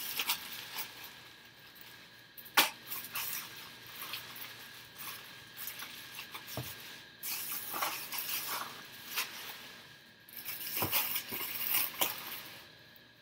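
Rustling and crinkling of plastic packaging and cardboard as items are unpacked, with scattered sharp clicks and knocks. The loudest knock comes about two and a half seconds in.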